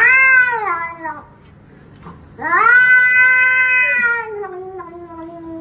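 Cat yowling in two long, drawn-out calls. The first bends up and then falls away about a second in; the second starts a little after two seconds in, holds steady and then slowly sinks in pitch.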